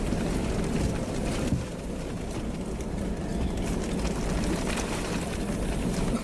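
Strong wind buffeting the microphone, a steady low rumbling roar with faint crackle above it, in storm-chase footage of an EF3 tornado.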